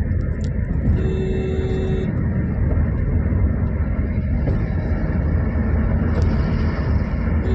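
Heavy rain pouring, a dense steady noise with a strong low rumble. About a second in, a vehicle horn sounds once for about a second.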